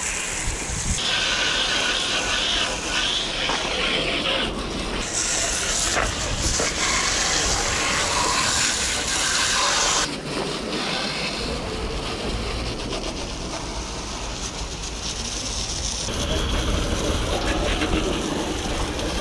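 Water jet from a garden-hose spray nozzle hissing and spattering against a muddy mountain bike as it is washed down. The spray changes in strength and pitch several times, about a second, five, ten and sixteen seconds in, as the jet moves over different parts of the bike.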